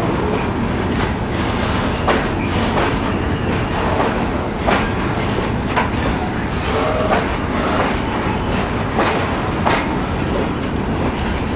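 Loaded Falns hopper wagons of a freight train rolling past, a steady rumble of wheels on rail with a run of sharp, irregular clacks as the wheels cross the track joints.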